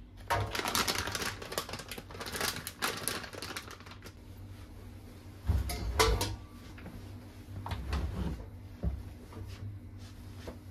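Household objects being handled: a quick run of clicking and rattling, then a heavier knock about halfway through and a few lighter taps.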